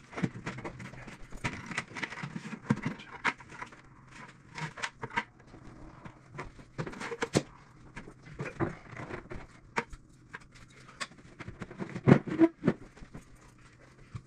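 Irregular clunks, knocks and scraping of plastic 5-gallon buckets and metal sawhorses being set down and moved while a countertop is shifted onto the buckets, with the heaviest thumps about twelve seconds in.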